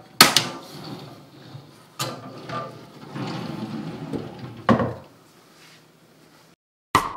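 Reeded-glass sliding doors of a white oak wall cabinet being pushed along their tracks, rumbling as they run. Each push ends in a sharp knock as a door hits its stop, four knocks in all. There is a short quiet pause before the last knock near the end.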